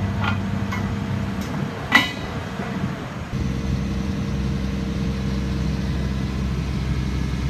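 Engine idling steadily on a work site, with a few light metal clicks at the start and one sharp, briefly ringing metal clank about two seconds in, from steel spreader pipe and pin hardware being fitted to a trench shield.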